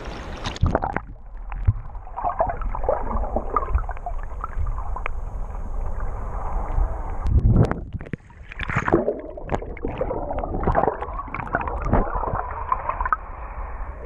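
Seawater sloshing and gurgling around an action camera held at the surface, sounding muffled as the camera rides in and out of the small waves.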